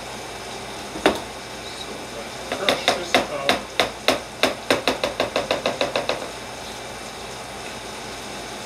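A metal utensil knocking once against a plastic food container, then tapping against it rapidly, about six sharp clicks a second for some three seconds, while mayonnaise is worked into crushed sweet potato.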